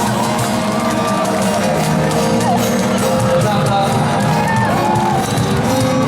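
Live band music with a crowd cheering and whooping.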